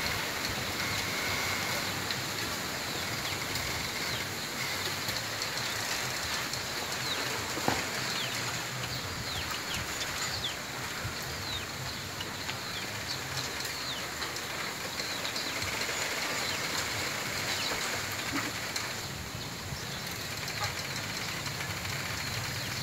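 Bamboo grove moving in the wind: a steady rustling hiss of leaves, with many short high squeaks of stems rubbing and creaking and one sharp tick of a cane about eight seconds in.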